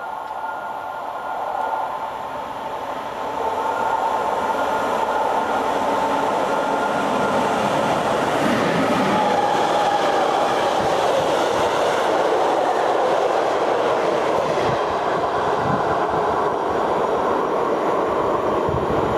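Freight train of tank wagons passing close at speed: a steady rumble and clatter of wagon wheels over the rails. It swells about three and a half seconds in, with a thin high ringing tone running through it.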